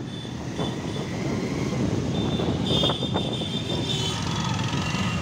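Engines of many motorcycles riding together in a procession, running steadily and growing louder over the first two seconds. A short high tone sounds about three seconds in.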